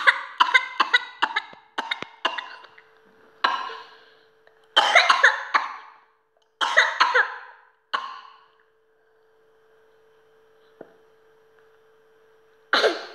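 Young child coughing in a whooping-cough (pertussis) fit: a fast run of short coughs, then several longer coughing bouts with pauses between, dying away about two-thirds through. One more short, sharp burst comes near the end.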